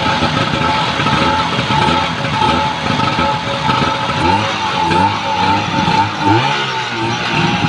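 Tohatsu V50 Rabbit portable fire pump engine running steadily on a test run.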